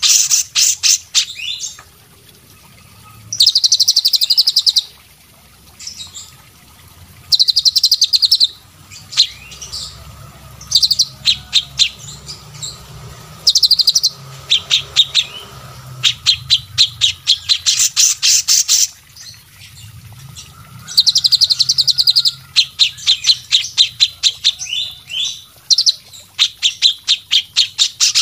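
A songbird calling in repeated loud bursts of fast, sharp, rattling notes, each burst a second or two long, with short pauses between.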